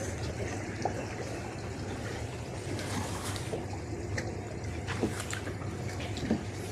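A boat engine runs steadily at low speed, with water trickling and lapping against the hull and a few light clicks and knocks.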